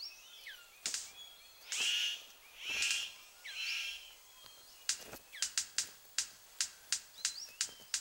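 Male superb bird-of-paradise courtship display: a few harsh, rasping calls in the first half, then a quick run of sharp snapping clicks, about four a second, from about five seconds in. Thin whistles of other forest birds run underneath.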